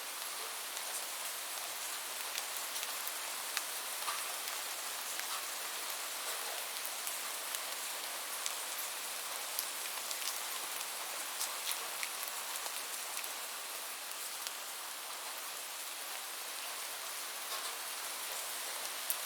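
Steady rain falling, an even hiss with scattered individual drops ticking throughout.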